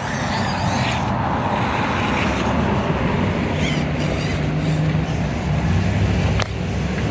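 Electric motor and gears of an Axial SCX24 1/24-scale RC crawler running steadily while it crawls the rock course, with a single sharp click near the end.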